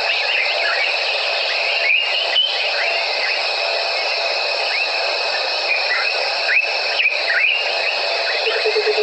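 Evening bush chorus of insects and other calling animals: a steady high-pitched shrill with many short whistled chirps sliding in pitch. A low pulsing trill begins near the end.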